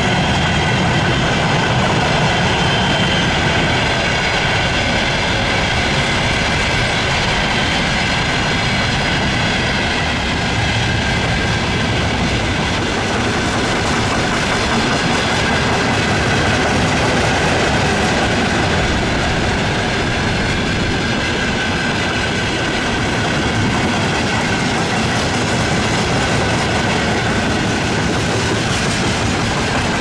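A loaded container freight train rolling past, its wagons clattering steadily over the rails, with a steady high whistle running through it.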